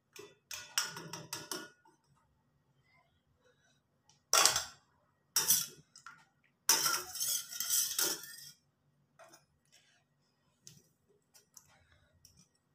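A spoon clinking and scraping against a stainless steel bowl while red food colouring is stirred into liquid agar-agar jelly, in several bursts: one about half a second in, two short ones around four to six seconds, and a longer stretch of stirring around seven to eight seconds, then only faint ticks.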